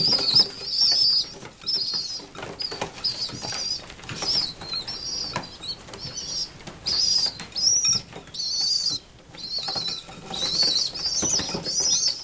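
Young pigeons (squeakers, about three weeks old) giving repeated high-pitched, wavering squeaking calls while crowding and pecking at peanuts in a dish, with wing flutters and sharp beak taps mixed in.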